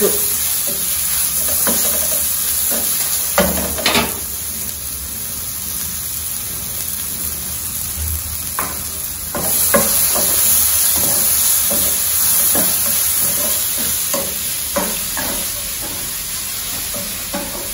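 Grated raw mango, onion and coconut sizzling steadily as they fry in oil in a pan, with a wooden spoon scraping and stirring through them in short, irregular strokes. Two louder scrapes come about three and a half and four seconds in.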